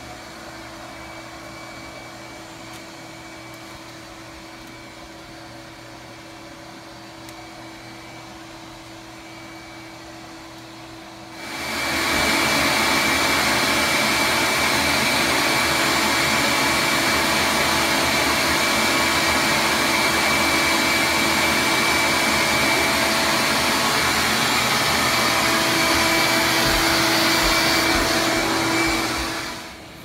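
Loud, steady whirring of a vacuum-type electric motor that cuts in abruptly about a third of the way in and winds down just before the end. Before it there is a fainter steady hum with a thin high whine.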